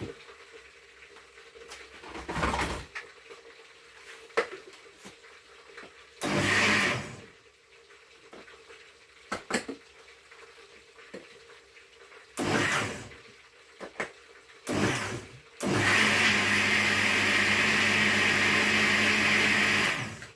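Electric kitchen blender switched on in three short pulses, then run steadily for about five seconds, its motor holding a constant pitch.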